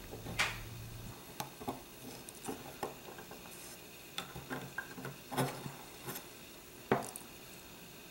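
Light metallic clicks and scrapes of the Norinco 213 pistol's hammer, hammer spring and sear block being pressed into line and held with an alignment drift. The clicks are scattered, with a few louder ones.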